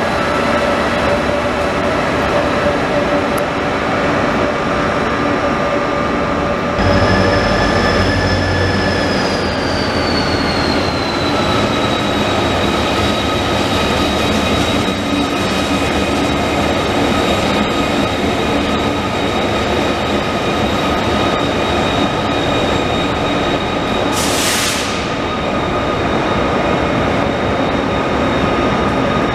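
Trains running through a station: a steady electric whine and rolling noise. About seven seconds in, a deep diesel engine rumble joins, and a high whine slides down in pitch, then holds steady. Wheels run and squeal on the rails, with a short hiss of air near the end.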